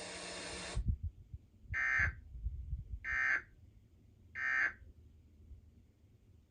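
Emergency Alert System end-of-message data tones: three short buzzing bursts about a second apart, marking the end of the tornado warning. A steady hiss cuts off just before the first burst.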